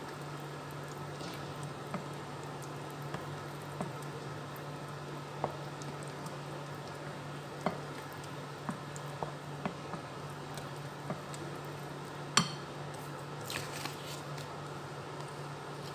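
A spoon stirring thick puto batter in a ceramic bowl: soft wet squishing with scattered light clicks of the spoon against the bowl, and one sharper knock about twelve seconds in. A steady low hum runs underneath.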